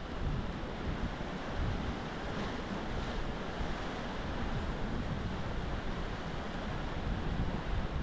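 Sea surf washing steadily over a rocky shoreline, with wind buffeting the microphone in low rumbling gusts.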